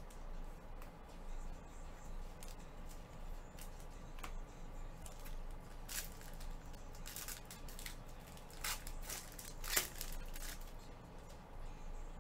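Foil wrapper of a trading-card pack being torn open by gloved hands, crinkling in a run of short, sharp crackles from about halfway in, the loudest near the end.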